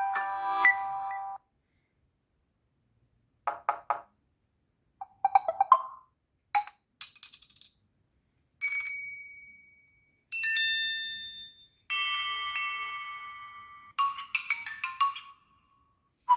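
Samsung Galaxy S3 notification sounds played back one after another: about nine short electronic chimes and jingles, some single held tones and some quick runs of notes, each cut off by a gap of silence.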